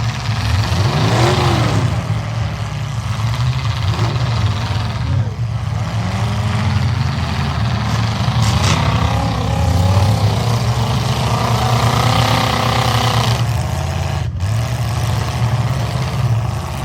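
Demolition derby trucks' engines running hard, a steady low drone with engine pitch rising and falling again and again as they rev. The sound cuts out for an instant about two-thirds of the way through.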